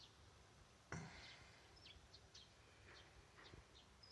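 Near silence, with faint short bird chirps in the background and a soft thump about a second in.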